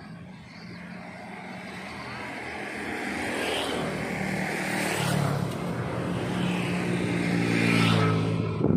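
A motor vehicle's engine getting steadily louder as it draws near, with rushing swells of passing noise.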